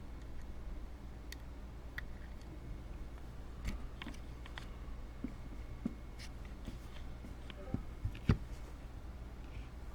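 Faint, scattered light clicks and scrapes of a hook pick working the pins of a 40 mm five-pin brass padlock during single-pin picking, with one louder click near the end, over a steady low hum.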